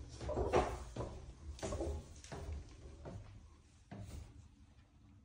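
Footsteps climbing a spiral staircase: a series of dull thumps, about one every three-quarters of a second, heaviest in the first two seconds and lighter after.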